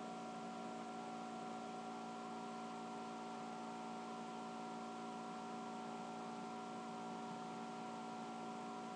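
Laptop cooling fan right next to the microphone, a steady whir with a constant hum of several fixed tones over hiss.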